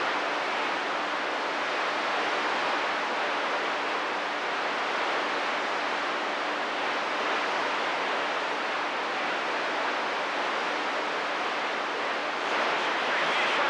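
CB radio receiver static: a steady hiss between transmissions with the squelch open, and a faint low steady tone under it.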